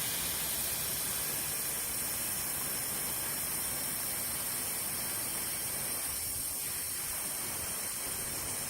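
Compressed air hissing steadily from a tyre inflator into a motorcycle inner tube through the valve stem with its core removed, filling the tube so the new rear tyre seats on the rim.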